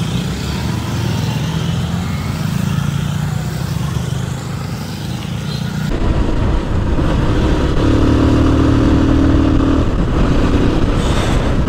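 Motorcycle engine running at cruising speed, with wind rushing past. About six seconds in the sound changes abruptly and the engine becomes louder and steadier.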